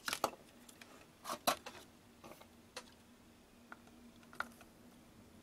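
Light clicks and taps from a soldering iron tip and solder wire worked on the pins of a circuit board: two small clusters in the first second and a half, then a few scattered single ticks. A faint steady hum runs underneath.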